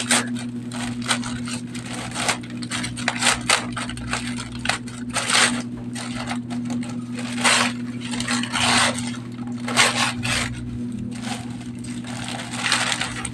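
Irregular rustling, crinkling and scraping as the packaging around a potted Aglaonema is handled and pulled off, over a steady low hum.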